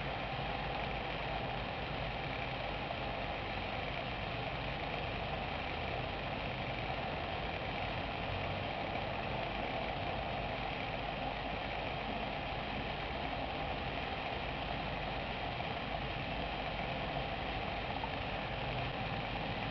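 Steady, unchanging rush of moving air with a faint low hum underneath.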